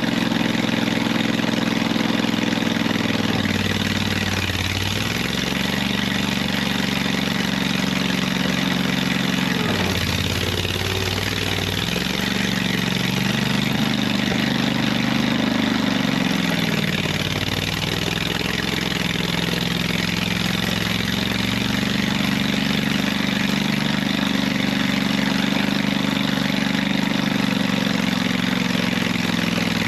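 Skid steer engine running steadily under load while spreading stone, its revs dipping and climbing back about three times.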